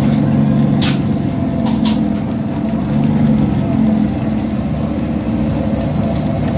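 Engine of a 2010 Nova Bus LFS articulated city bus running steadily, with two short hisses of air about a second apart.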